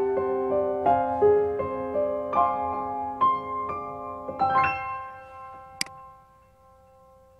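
Background piano music, a run of struck notes that stops about two-thirds through and is left to fade away. Near the end there is one sharp click.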